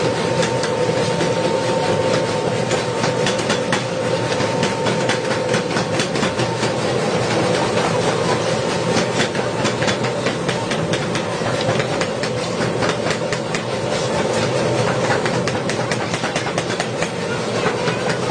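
Rapid, repeated hammer blows on metal during forging, several strikes a second, over a steady hum.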